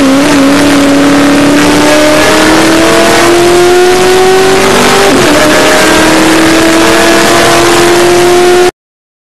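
Honda S2000 race car's F20C four-cylinder engine accelerating, heard from inside the cabin, its pitch climbing steadily. A quick upshift comes about five seconds in, then the pitch climbs again until the sound cuts out suddenly near the end.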